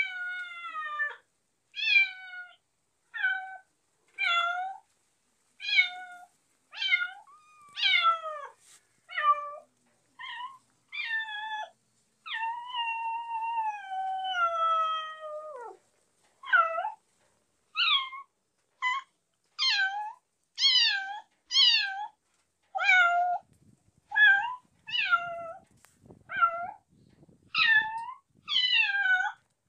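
Kittens meowing over and over: short, high-pitched meows about one a second, each dropping in pitch. About halfway there is one long, drawn-out meow that falls away at its end.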